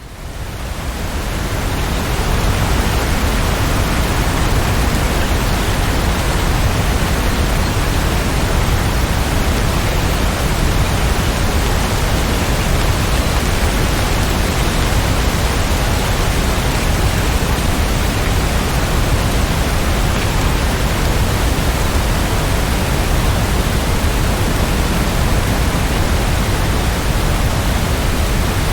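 Steady, dense rain, an even hiss with no separate drops standing out, fading in from silence over the first couple of seconds and then holding level.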